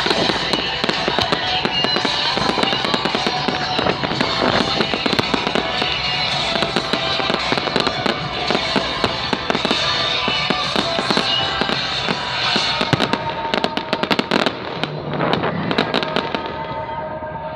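Fireworks display: a dense, continuous run of bangs and crackles, thickest a little before the end and thinning toward the close, with music playing underneath.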